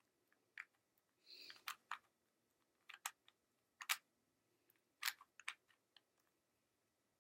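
Plastic Rubik's Cube being twisted by hand, its layers clicking as they turn: about eight sharp, irregular clicks spread over several seconds, with a brief soft rustle about a second in.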